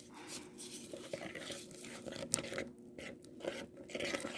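Clear glue slime being stirred in a container, with irregular sticky, wet sounds as it pulls and folds while the detergent activator makes it form.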